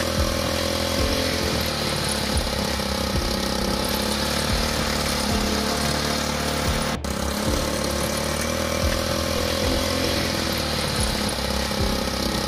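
A small engine running at a steady speed, its pitch and level unchanging, with a brief dropout about seven seconds in.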